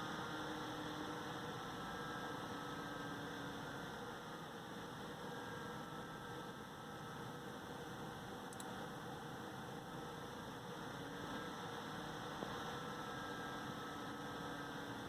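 AMD Wraith Spire stock CPU cooler fan running, a steady whir with faint, slightly wavering tones over it: the noise its owner calls loud.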